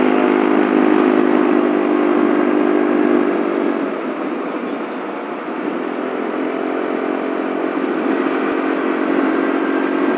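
Yamaha Mio Soul scooter's engine running at a steady note while riding, easing off about four seconds in and picking up to a steady note again a few seconds later, over a rush of wind and road noise.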